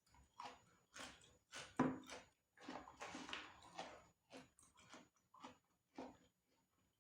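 Close-miked chewing of crunchy food: a run of short crunches, about two a second, with the loudest one about two seconds in and a denser stretch of crunching in the middle.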